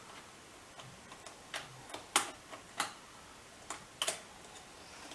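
Irregular sharp clicks and light taps of small tools and parts being handled during hand work on a motorcycle, about seven or eight in all, the loudest about two, three and four seconds in.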